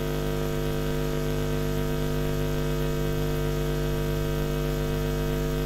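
Steady electrical mains hum in the audio: an even, unchanging buzz made of a low tone and a ladder of evenly spaced overtones.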